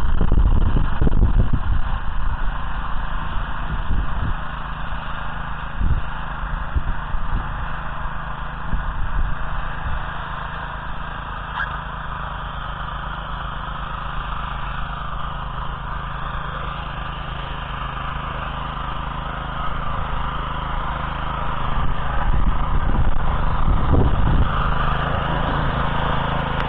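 Small petrol engine of a walk-behind motor cultivator running steadily as it tills the soil, fading as the machine works away and growing louder again near the end as it comes back close.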